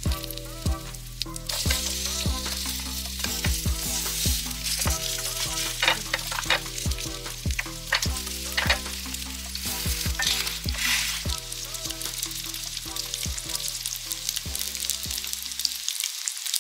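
Egg-batter shrimp and wild-garlic pancakes sizzling in hot oil in a frying pan, the hiss swelling about a second and a half in, with scattered sharp clicks as they are turned and moved in the pan.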